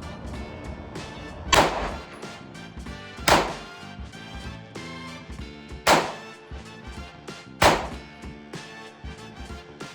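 Ruger PC Charger 9mm firing unsuppressed supersonic rounds in semi-auto: four sharp, loud shots a second or two apart, over background music.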